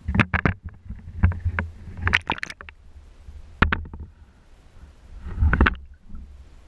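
Water splashing and sloshing against an action camera's waterproof housing as it is dipped below the surface, in about six separate bursts with sharp knocks, the longest one near the end.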